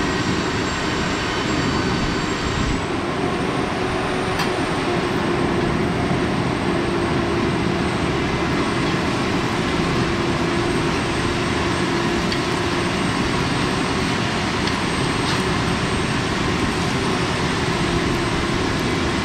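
Egg frying in oil on a large flat iron griddle under a steady, loud roar of background noise with a faint hum.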